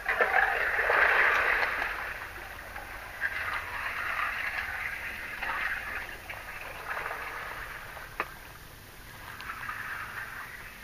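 Water swishing in uneven swells, with a few light clicks and one sharp click about eight seconds in.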